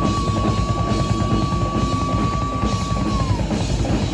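Live psychobilly band playing a rock rhythm on drum kit with bass and guitar. A single high held tone sits over it and slides down and stops a little over three seconds in.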